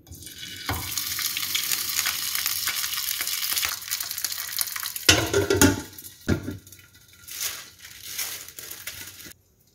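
A raw cong you bing (scallion flatbread) sizzling in hot oil in a frying pan after being laid in. There are a few louder knocks about five seconds in, and the sizzle turns fainter and patchier after about six seconds.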